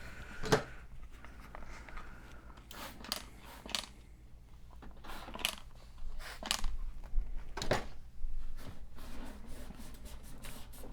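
A computer case being wiped down with cleaner and a cloth: rubbing and handling noise with scattered short knocks and clicks.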